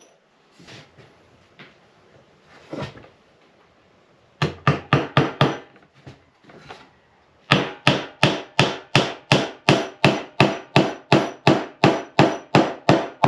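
Hammer driving a small square-head nail into a wooden board: a quick run of light taps a few seconds in, then a steady run of blows at about four a second.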